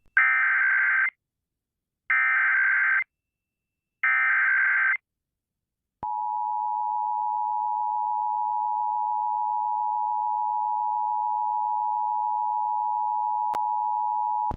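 Emergency Alert System tones. First come three one-second bursts of SAME header data, a harsh digital warble, two seconds apart. Then the steady two-tone EAS attention signal holds for about eight and a half seconds, signalling the start of an emergency alert.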